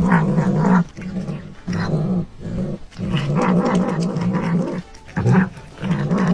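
A cat growling in a low, steady voice as it eats, in stretches of about a second with short pauses between.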